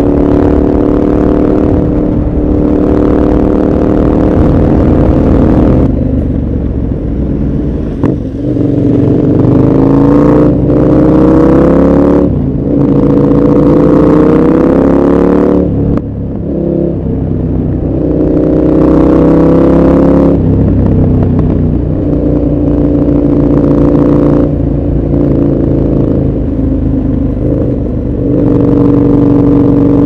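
KTM 1190 Adventure R's V-twin engine heard from on board while riding, pulling hard: its pitch climbs several times in the middle, each climb broken by a short dip as the throttle closes for a shift, then it settles back to a steady run near the end.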